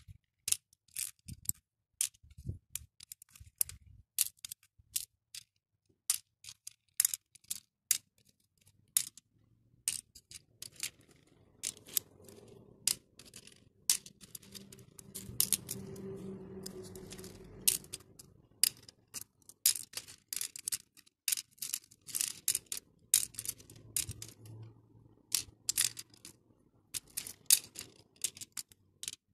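Acrylic beads clicking against clear plastic compartment trays as they are picked through and dropped by hand, a quick, irregular run of sharp little clicks.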